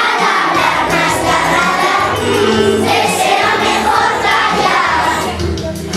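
A children's choir of young primary school pupils singing a song together over instrumental accompaniment with steady bass notes.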